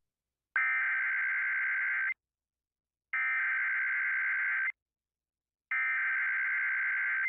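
Emergency Alert System SAME header from a Sage ENDEC encoder, received off FM radio: three identical bursts of screechy digital data tones, each about a second and a half long with a one-second gap between them, marking the start of an Amber Alert.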